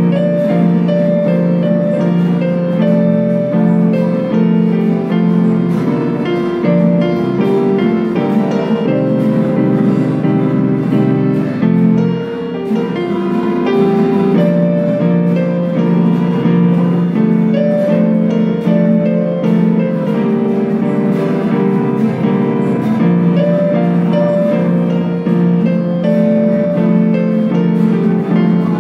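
Electronic keyboard played by hand in a piano-like voice: a melody in the right hand over held chords in the left.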